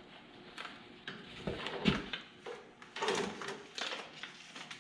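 Light knocks and rustling of tools and parts being handled at a workbench, a few soft clunks spread through it.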